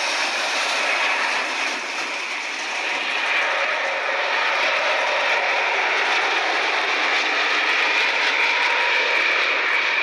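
Airbus A330-900neo's Rolls-Royce Trent 7000 turbofans running at approach power as the airliner passes low on final approach: steady jet noise with a high whine.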